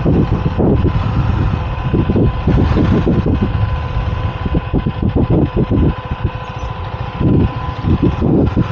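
KTM Duke 390's single-cylinder engine running at low speed as the motorcycle rolls slowly over rough grass and dirt, with uneven low rumbling throughout.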